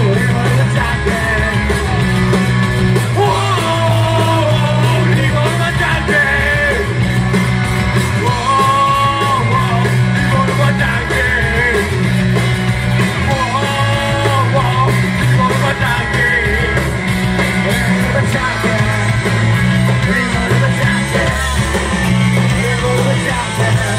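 A live rock band playing: a singer sings over electric guitar, bass guitar and drums.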